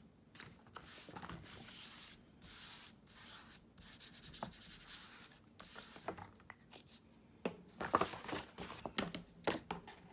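Glue stick rubbed back and forth over paper in repeated scraping strokes. About three-quarters of the way in, it gives way to louder, crisper strokes of scissors cutting through a manila file folder.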